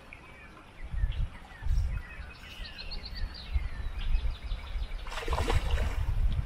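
Songbirds chirping in short descending trills over an irregular, gusty low rumble on the microphone. A brief rush of noise comes about five seconds in.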